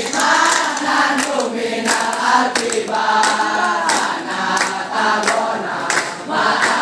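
A large group of boys chanting a yel-yel cheer in unison, with rhythmic hand clapping.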